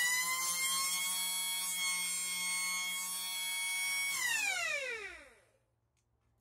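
Restored old factory siren: a mechanical siren's steady wail at full pitch, which winds down in a falling glide about four seconds in and dies away by about five and a half seconds.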